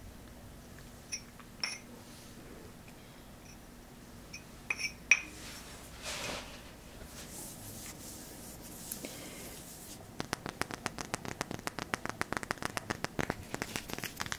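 ASMR hand sounds close to the microphone: a few scattered light clicks and taps, the sharpest about five seconds in. Then, about two-thirds of the way through, comes a quick, even run of soft finger clicks, several a second.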